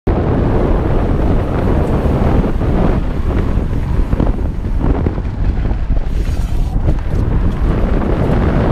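Heavy wind buffeting on a mountain bike's camera microphone during a fast descent on a dirt trail, with scattered clatter from the bike and tyres over the ground.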